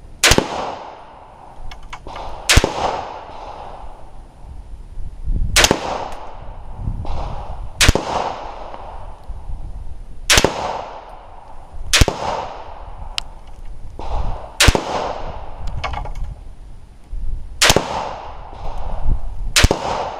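IWI Ace Galil .308 semi-automatic rifle firing nine aimed single shots, one every two to three seconds, each crack followed by a fading echo.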